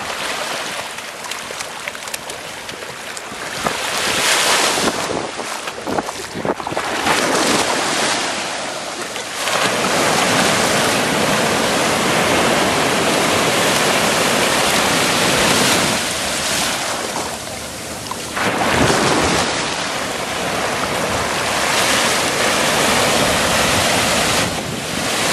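Small waves breaking and washing in over shallow water at the shore, the rush of surf swelling and easing every few seconds, with wind buffeting the microphone.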